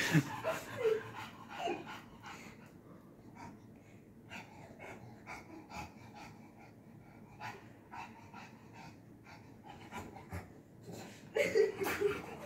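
English bulldog puppy panting hard in quick, rapid breaths, louder at the start and again near the end.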